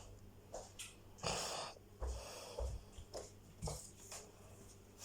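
A dog sniffing and snorting in a run of short, faint puffs of breath, one longer snuffle about a second in.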